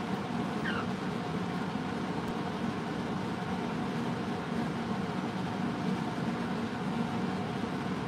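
Steady low machine hum of an appliance running in the room, unchanging throughout, with a faint short falling bird chirp a little over half a second in.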